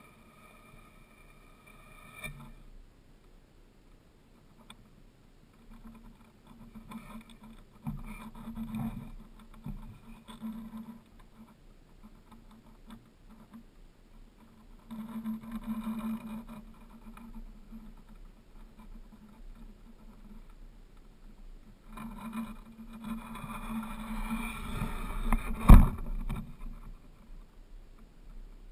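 Muffled rubbing and rumbling on a bow-mounted action camera as the bow is shifted, in four bouts a few seconds apart, with one sharp knock about three quarters of the way in as the loudest sound.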